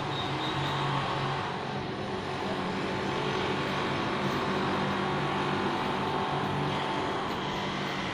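Steady mechanical hum and rushing noise of a running machine, with a low hum that wavers slightly throughout.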